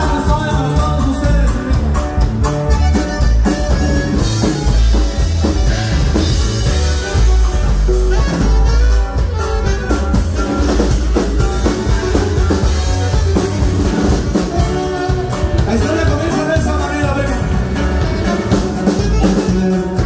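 Live norteño band playing through PA speakers: button accordion, alto saxophone, bajo sexto, electric bass and drum kit over a steady beat.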